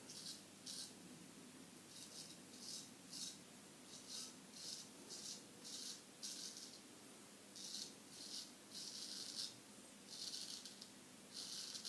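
Straight razor (Solingen H. Geffgen 6/8) scraping through stubble on a lathered face: a run of short, faint, rasping strokes at an uneven pace, about one or two a second.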